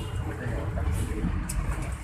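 Luragung Jaya bus's engine running with a low, pulsing rumble from its 'snoring' exhaust.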